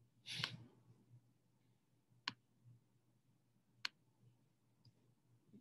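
A couple of sharp computer mouse clicks, about a second and a half apart, as the PowerPoint menus are opened, in near silence. A short breathy noise comes just at the start.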